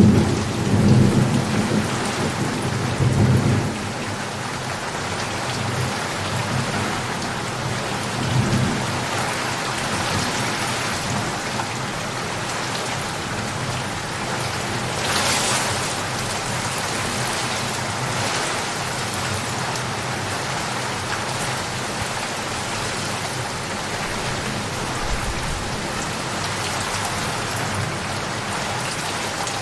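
Steady rain falling, with thunder rumbling loudly in the first few seconds and again more softly about eight seconds in.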